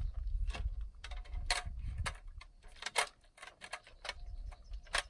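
Irregular sharp clicks and light knocks, about half a dozen, over low wind rumble on the microphone that dies away after about two seconds.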